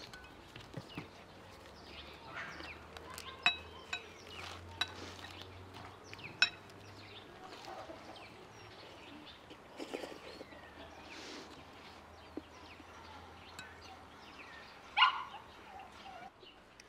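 Metal spoons clinking against ceramic soup bowls every few seconds, a few sharp clinks with a brief ring, the loudest near the end. Birds chirp faintly in the background.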